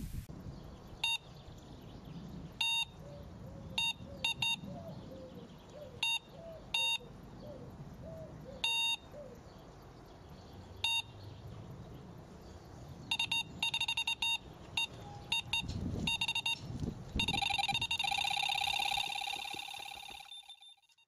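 Electronic carp bite alarm beeping: single beeps and short clusters at first, then quickening runs that merge into a near-continuous screaming tone near the end, the signal of a fish taking line, before fading out.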